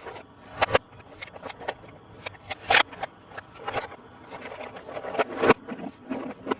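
Hands handling a plastic toy bulldozer and its packaging: irregular clicks, taps and short rustles.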